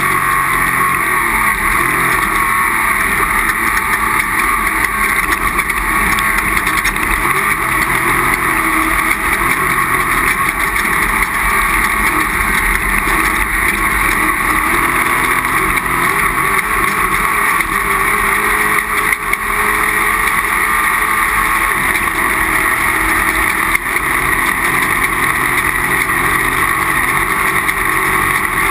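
Off-road race vehicle's engine running hard at a steady high speed, with continuous loud engine and driving noise and a couple of brief dips in the second half.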